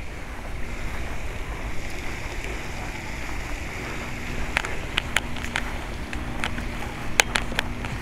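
Wind on the microphone over a steady low hum, with a run of sharp clicks through the second half.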